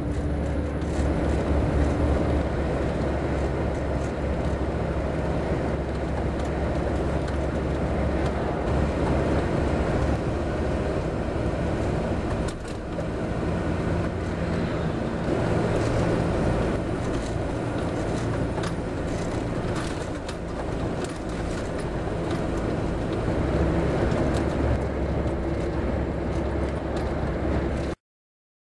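Steady engine and road noise inside a moving car at highway speed, with a low hum and a few scattered clicks. It cuts off suddenly near the end.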